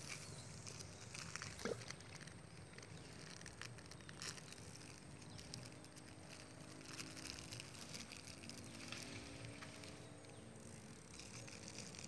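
Faint outdoor ambience: a low background hiss with scattered soft clicks, and a faint steady pitched drone from about six seconds in.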